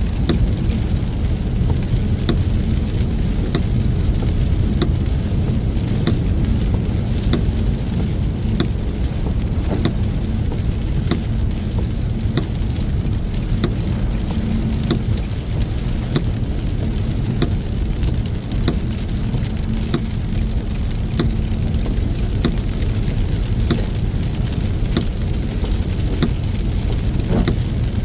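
Heavy rain striking a moving car, with many sharp, irregular drop impacts over a steady low rumble of road and engine noise.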